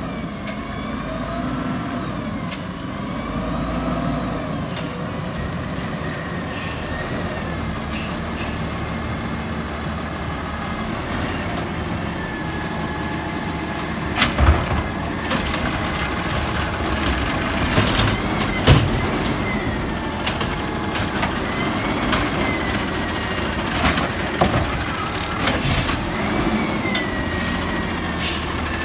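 Natural-gas Peterbilt automated side-loader garbage truck working at the curb: the engine revs up and down to drive the hydraulic arm, with a whine from the hydraulics and sharp knocks as carts are grabbed and dumped, the loudest about halfway through and again near three-quarters of the way through.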